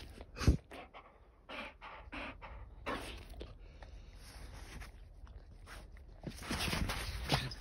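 A dog sniffing and snuffling with its nose in the snow: a string of short, breathy sniffs at an uneven pace, growing louder and busier near the end.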